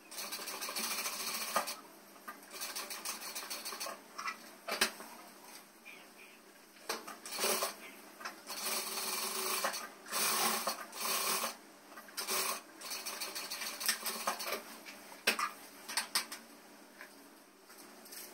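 Industrial lockstitch sewing machine stitching denim, running in short bursts of a second or two and stopping between them as the fabric is guided and turned.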